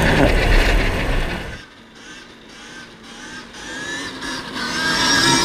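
Wind and tyre rumble of a KTM electric dirt bike ridden along a gravel road, cutting off sharply about a second and a half in as the bike slows. Then the faint, wavering high whine of the electric motor, growing louder near the end.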